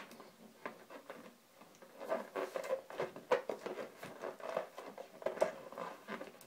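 Inflated latex balloons squeaking and rubbing in short, irregular bursts as their knotted necks are twisted and tied together by hand.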